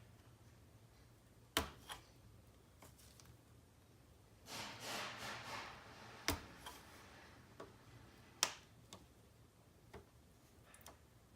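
Scattered sharp clicks and taps of small plastic parts and tools being handled while a car navigation head unit is taken apart, with a brief scraping rustle about halfway through.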